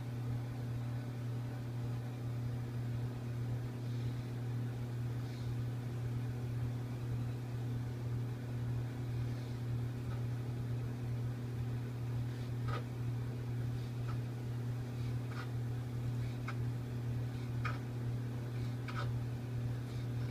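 A steady low hum, like a kitchen appliance or fan running, with short knife taps on a wooden cutting board as raw flounder fillet is diced, the taps coming more often in the second half.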